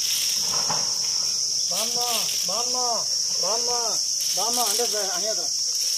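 Loud, steady, high-pitched insect drone. Four short calls that rise and fall in pitch sound over it in the middle.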